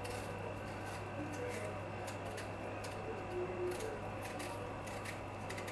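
Small paring knife cutting the skin off a peach in a thin strip: soft, irregular little scrapes and clicks of the blade through the peel, over a steady low hum.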